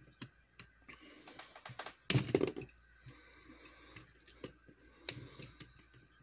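Side cutters snipping through the legs of a small DIP IC on a perfboard: a series of sharp clicks, the sharpest about five seconds in, with a louder, longer clatter about two seconds in.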